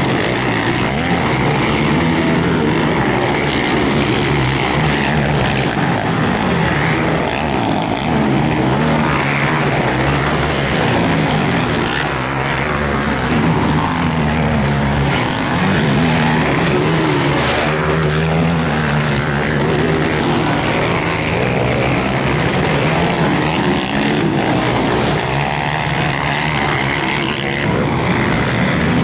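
Several racing quad bikes' engines revving hard and easing off around a motocross track. The pitch climbs and drops over and over, with more than one engine overlapping.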